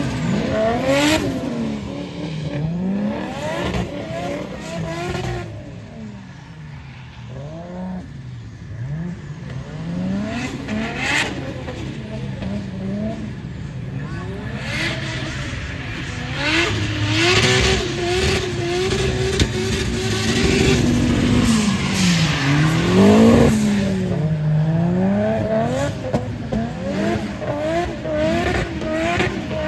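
Nissan S14 drift car's engine revving hard as it slides through the corners, its pitch rising and falling over and over and held high for a few seconds past the middle.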